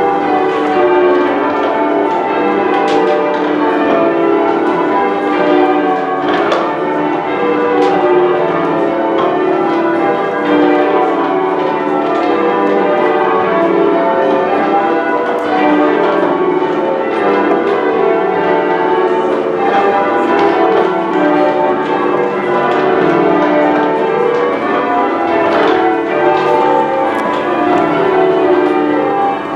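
A ring of ten church bells in the tower of Manchester Cathedral being rung in changes: a continuous, even run of overlapping bell strikes.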